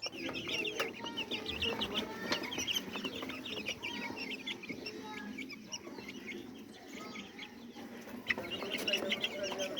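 A large flock of black Australorp chickens clucking and calling, many birds at once in a dense, overlapping chorus that swells again after about eight seconds.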